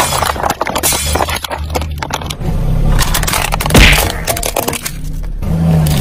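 Car tyre crushing thin plastic cups, a quick run of sharp cracks and crackles, then a louder crunch about four seconds in as it rolls over a plastic toy.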